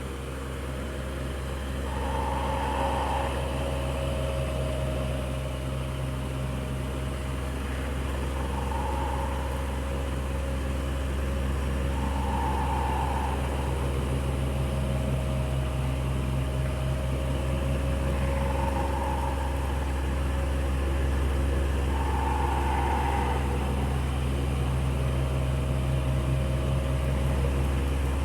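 Electric fan running steadily: a constant low motor hum with a steady higher tone over it. A faint higher note swells and fades every few seconds.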